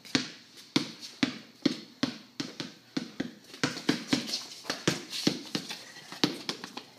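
A basketball being dribbled on pavement, bouncing steadily about two times a second, a little quicker around the middle.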